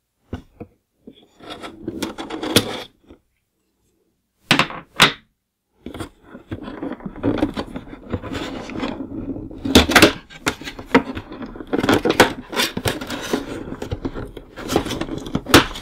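Packing tape being cut on a cardboard toy box and the box handled: scattered clicks and rustles, then a long stretch of cardboard scraping and rubbing with several sharp knocks as the end flap is worked open.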